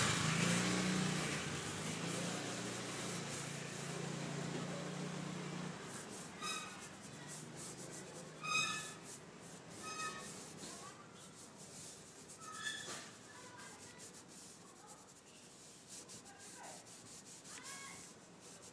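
A paintbrush rubs polish stain (politur) in soft strokes onto a teak-veneer plywood cabinet door. A steady low rumble fades away over the first several seconds. Short high chirping calls come in quick runs through the middle, the loudest about halfway in.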